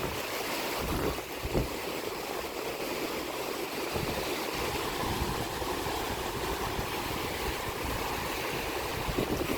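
Sea waves washing on the shore as a steady hiss, with wind buffeting the microphone in uneven low rumbles.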